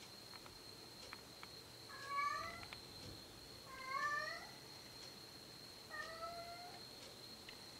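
A cat meowing as it passes: three drawn-out meows about two seconds apart, each rising in pitch, the first loudest and the last quietest.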